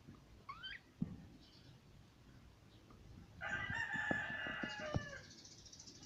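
A rooster crows once, a held call about a second and a half long starting past the middle, with its pitch dropping at the end. Earlier a budgerigar gives one short rising chirp, followed by a sharp click.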